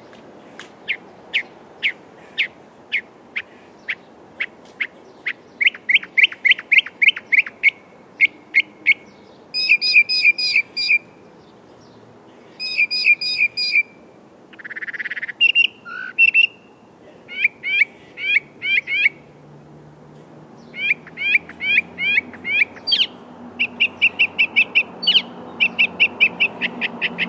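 Northern mockingbird singing: a long run of varied phrases, each repeated several times before switching to the next. The phrases range from evenly spaced single chirps to fast chattering series and buzzy trills, with one harsh, rasping note midway.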